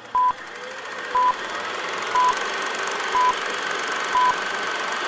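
Film-leader countdown beeps: a short, high, steady beep once a second, five times, over a hiss that slowly grows louder.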